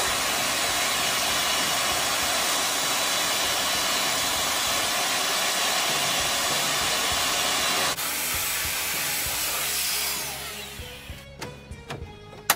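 Handheld electric hair dryer running steadily, blowing air over an air conditioner's control circuit board. The rush of air fades out about ten seconds in, and a few light clicks follow near the end.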